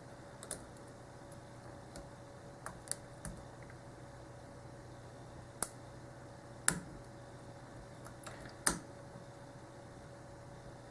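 Scattered small metallic clicks of a lock pick and tension wrench working the pin stack of a Schlage 851226 padlock. The clicks are irregular and far apart, with the sharpest ones a little past halfway and near the end.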